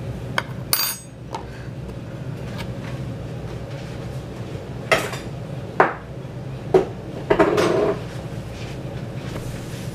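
Metal spoon clinking against a container and bowl while browned flour is scooped out: several separate clinks, with a short scraping rattle about seven and a half seconds in. A steady low hum runs underneath.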